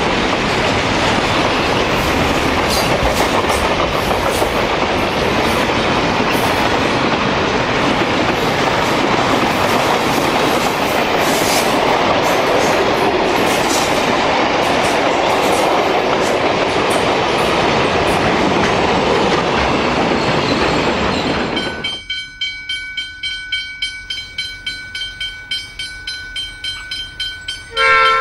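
Freight wagons (container flats, grain hoppers and tank wagons) rolling past at speed: a steady rumble of steel wheels with sharp clicks over the rail joints. About three-quarters of the way through it cuts to a much quieter, regularly pulsing background, and a train horn sounds briefly at the very end.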